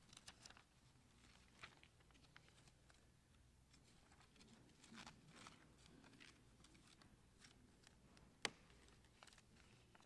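Near silence: quiet church room tone with faint scattered rustles and small clicks from people seated in wooden pews, and one sharper knock about eight and a half seconds in.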